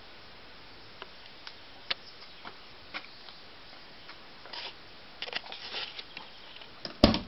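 Handling sounds at a car door: scattered light clicks and taps, some rustling, then a single loud clunk near the end as the door is opened.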